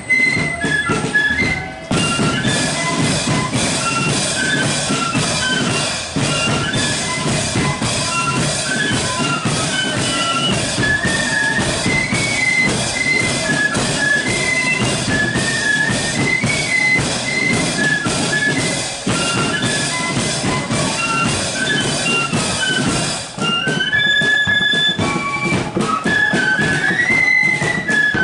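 A marching flute band playing a tune: massed flutes carry the melody over side drums and bass drum, the drumming filling out about two seconds in and thinning again near the end.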